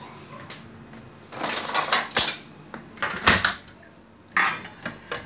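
Handling noise of a phone being picked up and repositioned: four short bursts of rubbing and knocking, the first about a second in and the longest.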